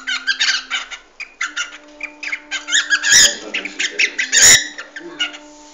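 Cockatiel bathing in a shallow metal bowl of water, splashing and fluttering its wings in quick irregular bursts, with two louder splashes about three and four and a half seconds in.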